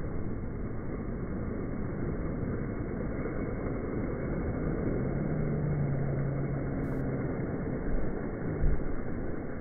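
Ocean surf washing and breaking in the shallows, heard as a steady low rumble with wind buffeting the microphone. A steady hum joins about five seconds in, and two dull thumps come near the end.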